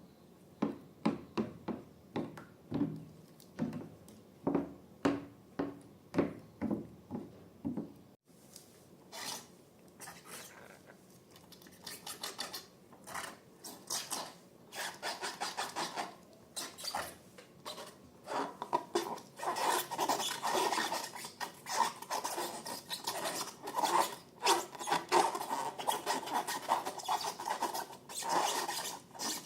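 Slime being squished and worked by hand: a run of separate sticky presses about twice a second, then after a break a faster, denser crackling and scraping that grows louder in the second half.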